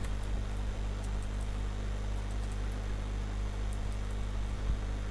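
Steady low electrical hum with hiss from the recording setup, with a few faint computer keyboard key clicks as a word is typed.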